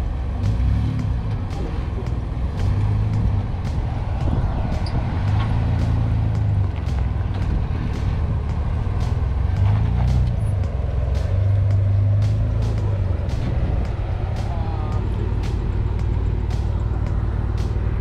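Off-road vehicle engine running with a low rumble, the throttle swelling and easing off four or five times as if working the vehicle over obstacles.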